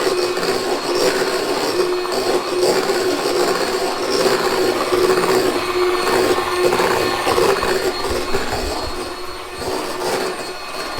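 Electric kitchen mixer running steadily as it beats the cake mixture, easing slightly in loudness near the end.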